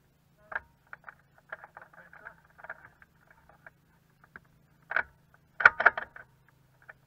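Irregular small clicks and rustles close to the microphone in a glider cockpit, then a cluster of sharp knocks about five to six seconds in, over a faint steady low hum.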